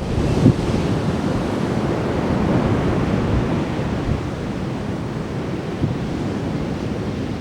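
Atlantic Ocean surf washing onto the beach in a steady rush, with wind buffeting the microphone in low gusts, strongest about half a second in.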